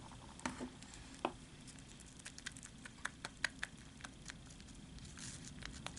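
A spoon stirring a creamy face-mask mixture in a small glass bowl: faint, irregular clicks and taps of the spoon against the glass.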